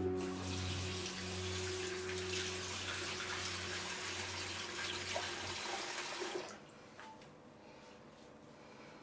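Water from a bathroom sink tap running into a ceramic washbasin, a steady rush that stops about six and a half seconds in.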